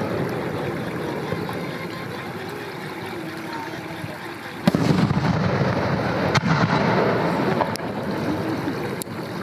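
Aerial firework shells bursting: one loud sharp bang about four and a half seconds in, followed by a few fainter cracks and bangs over the next few seconds.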